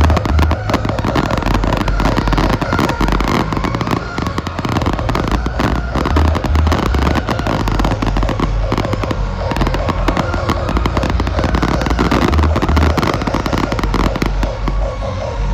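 Fireworks display at full intensity: a dense, unbroken crackling and popping of many shells, with deep booms underneath throughout.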